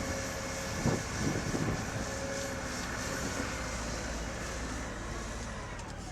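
Komatsu HB215 hybrid excavator running, a steady machine hum with a thin whine over it, and a single knock about a second in.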